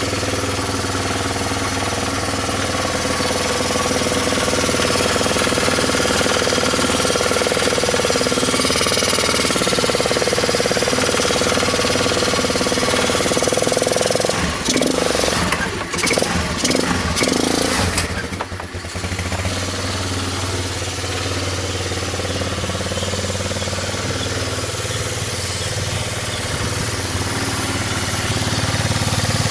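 Honda Dio scooter engine running steadily. Past the middle, for a few seconds, the sound breaks up with a few short irregular knocks and a brief dip before steady running resumes.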